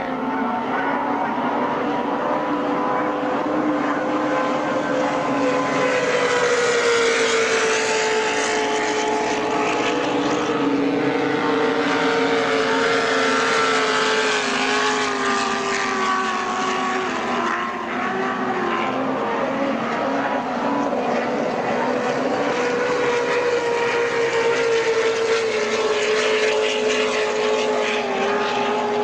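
Racing powerboat engines running hard at high revs as the boats pass along the course, a loud steady engine note whose pitch drifts slowly up and down, with a brief dip in loudness a little past halfway.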